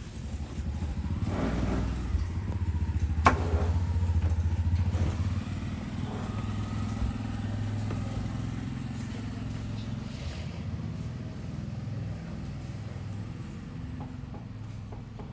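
A motor vehicle engine rumbling low and steady. It is loudest over the first few seconds, then slowly fades as it moves away. A single sharp click comes about three seconds in.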